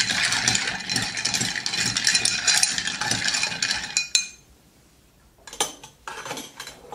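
A metal bar spoon stirring ice cubes round a glass mixing glass to chill a cocktail: a rapid, continuous clinking and rattling that stops about four seconds in. A few light knocks follow near the end.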